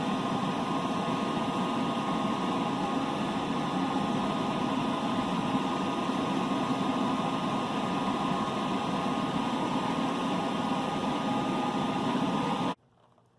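Steady mechanical running noise with a hum of several tones, which cuts off suddenly near the end.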